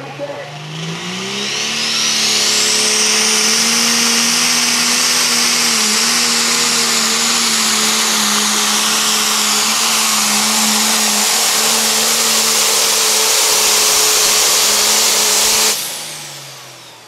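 Turbocharged diesel engine of a Super/Pro Stock pulling tractor at full throttle under the load of the sled. It climbs over the first two seconds with a turbo whine rising high, holds steady and loud through the pull, then cuts off sharply near the end as the throttle is let off, the whine falling away.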